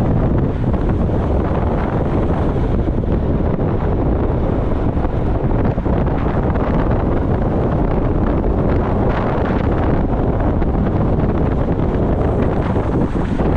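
Wind buffeting the action camera's microphone on a fast road-bike descent: a loud, steady rush, heaviest in the low end.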